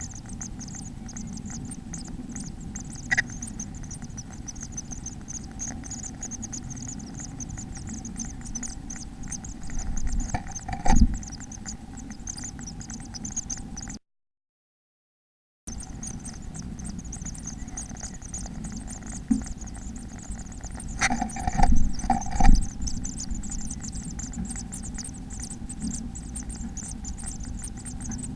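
A steady electrical hum and hiss from a nest-box microphone, with a few short scratches and bumps of a bird moving inside the box, clustered about ten seconds in and again around twenty-one to twenty-two seconds. The sound cuts out for a moment midway.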